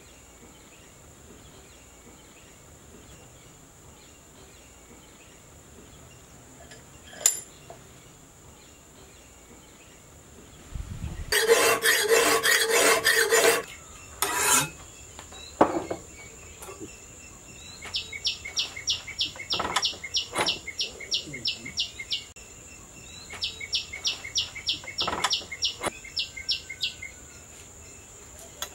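Hand file rasping along the edge of a hand-forged spring-steel knife blade clamped in a vise, in several runs of strokes; the first run rings with a squeal from the steel, and the later runs are quick, even strokes.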